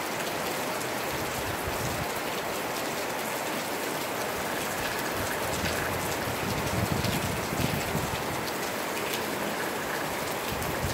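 Steady rain falling: a dense even hiss with scattered ticks of single drops, and low gusty rumbles coming in from about halfway.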